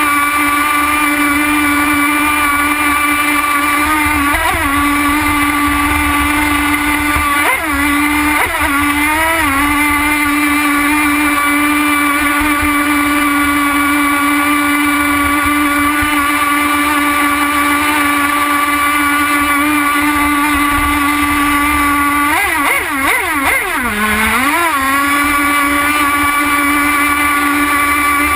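Two-stroke nitro glow engine of a radio-controlled model boat running at high speed, heard from on board: a loud, steady high-pitched whine. The pitch wavers and dips briefly about four seconds in, again around eight to nine seconds, and for a couple of seconds near the end.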